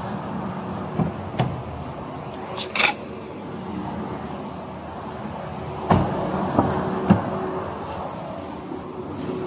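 A vehicle running with a steady low hum, with several knocks and clicks over it: a short clatter near three seconds in and a sharp knock about six seconds in, then two more clicks soon after.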